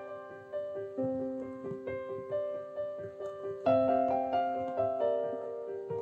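Background piano music: a slow run of single notes over a recurring low note, with a fuller, louder chord about two-thirds of the way through.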